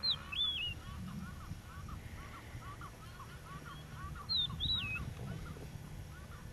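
Birds calling: two loud whistled calls that swoop up and down, one at the very start and one about four seconds in, over a steady stream of quieter, rapidly repeated calls from more birds, with a low rumble underneath.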